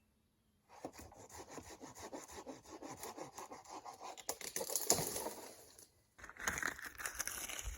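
Wood being sawn by hand: a quick run of rasping back-and-forth strokes starting under a second in, breaking off briefly about six seconds in, then resuming.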